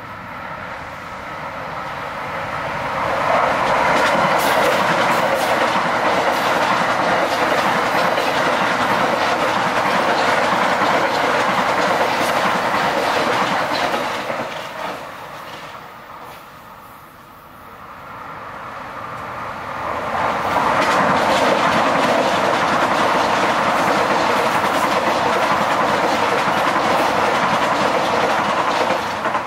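Metro-North electric commuter trains passing at speed on steel rails, in two passes: the first builds over about four seconds and fades around fifteen seconds in, and the second builds again from about eighteen seconds and stays loud to the end.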